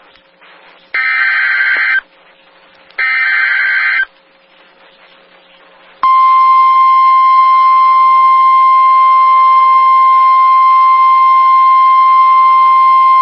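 NOAA Weather Radio emergency alert signalling: the last two of three short screeching SAME digital header bursts, about a second each and a second apart, then about six seconds in the steady 1050 Hz warning alarm tone, which marks the start of a new warning.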